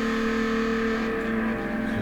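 A held guitar chord ringing steadily, its notes dying away near the end.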